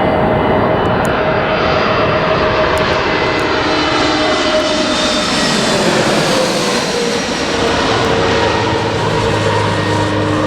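A landing aircraft's engines passing close by: a loud, steady engine noise whose tone drops in pitch about five to seven seconds in as the plane goes past.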